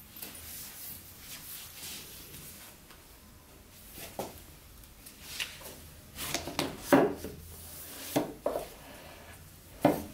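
Household cleaning sounds: a soft rubbing for the first few seconds, then a run of sharp knocks and clatters as objects are handled and set down, loudest near the middle and just before the end.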